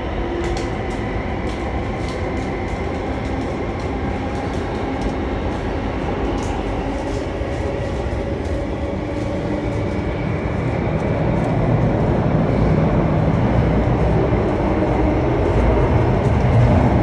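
Running noise inside a moving Singapore MRT Circle Line metro carriage: a steady rumble with faint ticking, the low rumble growing louder about two-thirds of the way through.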